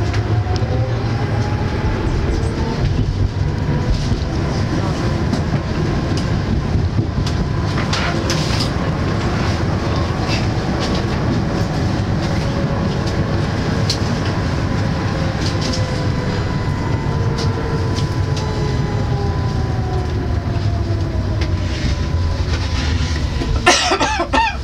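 Inside a moving electric tram: a steady low running rumble, with a faint motor whine that climbs in pitch over the first half and sinks over the second, and occasional clicks from the wheels on the rails. A brief louder rattle comes near the end.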